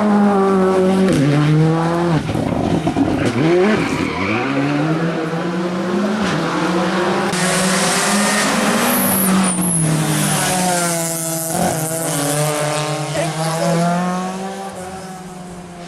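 Rally car engine revving hard, its pitch swinging up and down with gear changes over the first few seconds and then held high. A hiss of tyre noise comes up in the middle. The sound fades away near the end as the car drives off.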